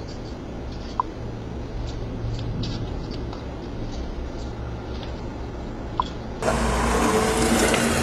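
Steady low outdoor background noise through a doorbell camera's microphone, with two short high beeps about five seconds apart. A little past six seconds a louder, fuller hiss suddenly takes over.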